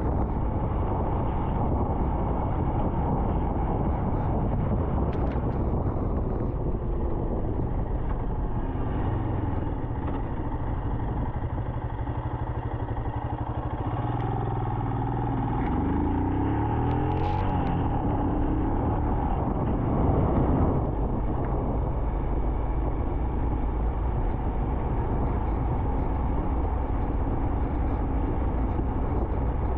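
Royal Enfield Himalayan's single-cylinder engine running under way, with wind and wet-road noise. Around the middle it slows for an intersection, then the engine pitch rises as it pulls away again.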